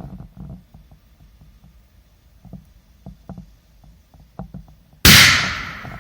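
P150 firecracker going off with a single loud bang about five seconds in, the sound dying away over about a second. Before it, only faint scattered clicks and knocks.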